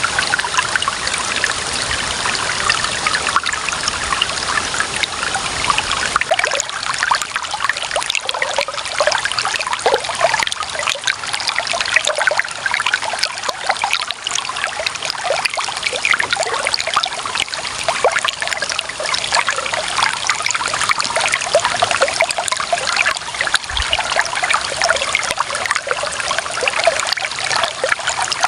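Clear running water trickling and splashing steadily over stones, a busy patter of small splashes.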